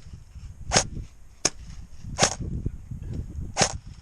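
Airsoft rifle firing single shots: three sharp cracks about a second and a half apart, with a fainter click between the first two.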